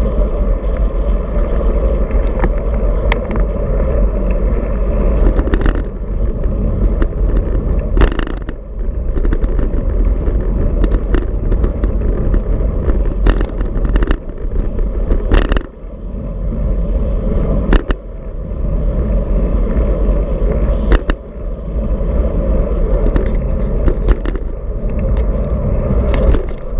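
Wind buffeting the mic of a handlebar-mounted camera on a moving road bike: a steady low rumble, with a few sharp knocks and rattles as the bike rolls over bumps and cracks in the road.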